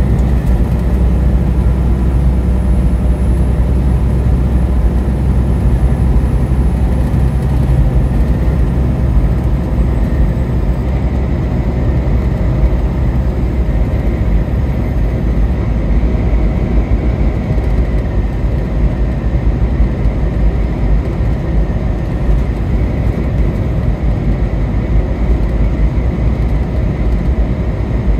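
Steady drone of a car driving at highway speed: engine and tyre noise with a heavy low rumble.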